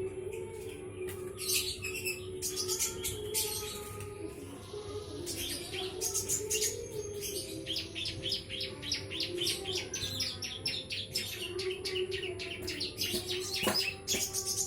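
Small garden birds chirping, with a fast run of short chirps in the middle, over a steady low hum.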